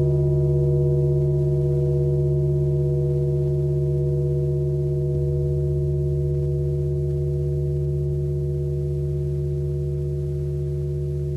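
Hung rusty oval iron plates ringing like a gong after a strike: a deep hum with several steady overtones above it, slowly fading. A soft stroke about five seconds in keeps it going.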